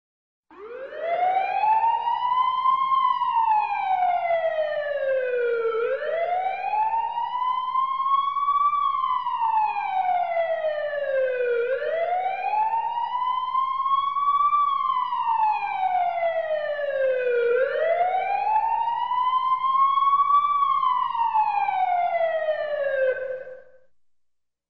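Emergency vehicle siren on a slow wail, its pitch rising then falling four times, each cycle about six seconds, over a faint low hum. It fades out near the end.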